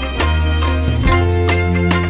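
Background music with a steady beat over sustained low bass notes.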